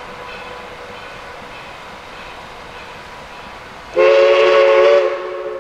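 A steam locomotive's chime whistle sounds one loud blast about four seconds in, then drops after about a second to a softer held chord, over a steady background hiss.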